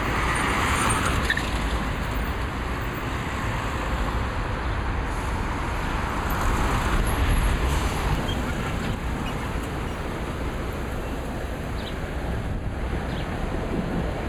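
Road traffic on a busy city street: a steady noise of car engines and tyres, swelling as vehicles pass near the start and again about six to eight seconds in.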